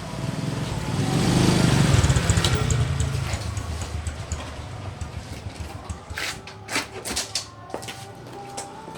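A motor vehicle passes by, its engine rumble swelling to a peak about two seconds in and then fading away. Several sharp clinks and knocks follow near the end.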